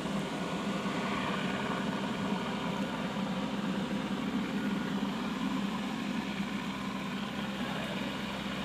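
Helicopter in flight, its rotor and turbine engine making a steady drone that eases off slightly toward the end.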